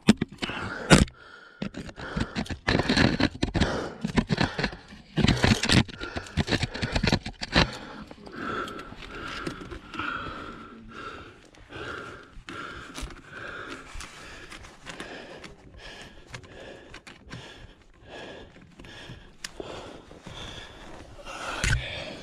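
A climber's pack, clothing and rock shoes scraping and knocking against the granite while he squirms up a chimney, with hard breathing from the effort. The scraping is busiest in the first several seconds, then eases to quieter rubbing and occasional knocks.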